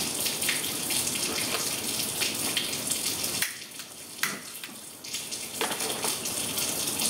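A steady water-like rushing in the kitchen dips for about two seconds in the middle. In that dip comes one sharp click as a long gas lighter is sparked at the stove burner.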